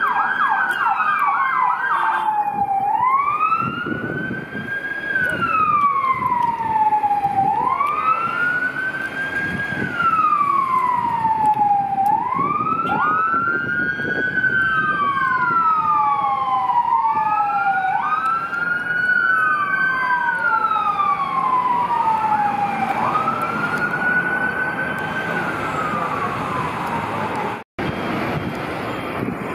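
Fire engine sirens: a fast yelp for the first couple of seconds, then a slow wail rising and falling about every four and a half seconds, with a second siren wailing out of step for a while in the middle, over the low running of the trucks and traffic.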